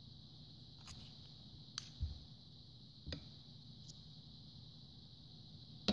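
Faint clicks and knocks of a metal spoon against a bowl as it stirs sticky bread dough, a handful of separate strokes about a second apart, over a steady faint hiss.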